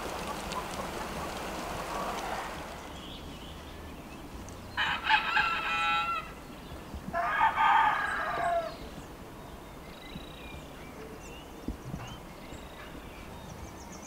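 A rooster crowing twice in quick succession, two long calls starting about five seconds in, with faint small-bird calls afterwards. A steady rushing noise fades out over the first few seconds.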